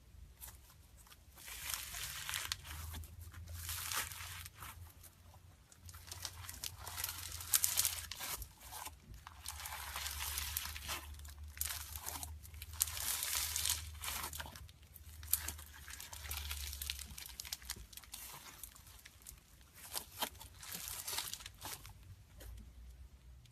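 Slime being squeezed and pressed by hand, with crackling and sharp pops as air bubbles inside it burst, in repeated bursts with short pauses between.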